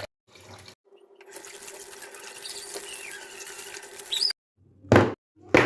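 Tap water running into a sink with a few high squeaks, then two sharp knocks near the end.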